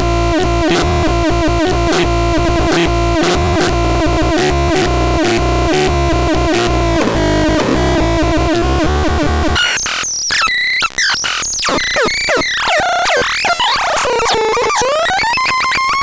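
Handmade experimental synthesizer, the Faranosnortron BX 603, played by turning its tempo, tune and depth knobs. It first makes a rapid stuttering pulse over a steady drone. After about ten seconds this gives way to swooping tones that glide up and down, ending on a rising sweep.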